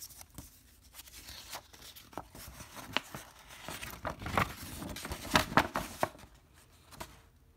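Folded paper poster being handled and unfolded, crisp paper rustling and crinkling with a few sharp clicks, loudest from about four to six seconds in.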